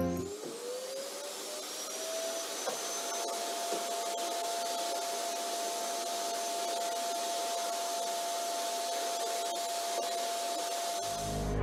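Vacuum cleaner motor starting up, its whine rising in pitch over the first couple of seconds, then running steadily with a hiss and an even hum. It cuts off near the end.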